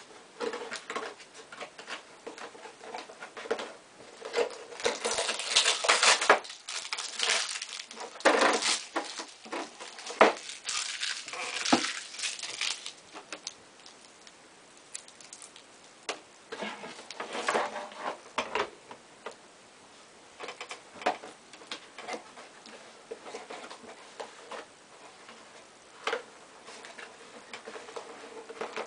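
Packaging rustling and crinkling with scattered clicks and knocks as a small appliance is unpacked from a cardboard box, busiest in the first half and sparser after that.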